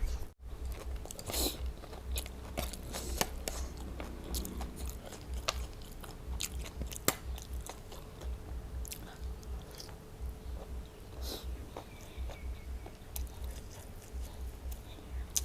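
Close-up chewing: a person biting into and crunching crisp raw vegetables, with many short, sharp crunches.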